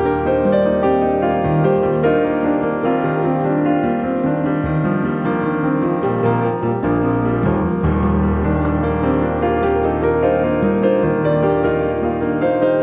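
Background piano music, a steady run of notes with no speech over it.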